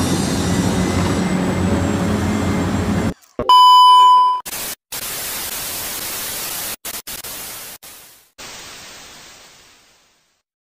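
Busy background sound cuts off about three seconds in. A short loud electronic beep follows, then a steady hiss like static that breaks off several times and fades away to silence.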